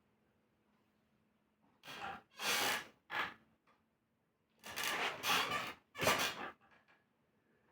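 About five short, breathy snorts or sniffs through the nose, coming unevenly, with a longer rough one about halfway through.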